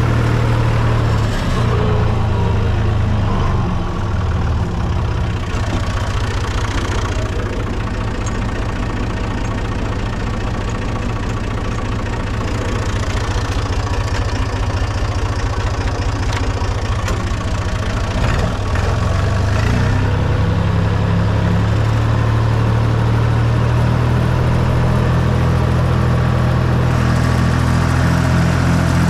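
Fiat Someca 500 tractor's diesel engine running steadily under load while pulling a plough through the soil. About twenty seconds in, the engine note rises and grows stronger.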